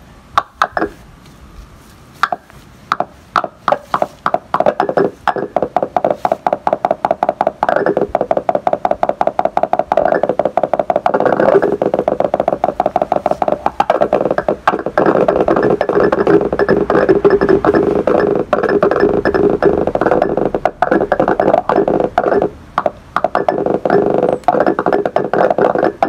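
Oscillator tones driven by the bioelectrical field of a turkey-tail mushroom colony: rapid, uneven pulses of electronic tone. They are sparse for the first couple of seconds, then quicken into a dense, almost continuous stutter from about eight seconds in.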